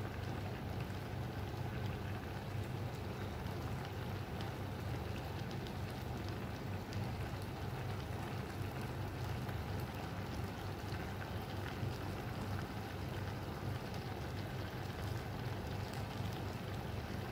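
Vegetables and liquid simmering in a pan: a steady run of small bubbling crackles over a low, even hum.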